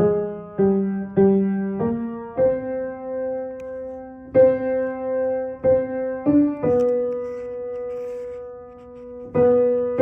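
Piano playing the alto line of a choral part note by note: a few short notes in the first two seconds, then longer held notes a little higher in pitch.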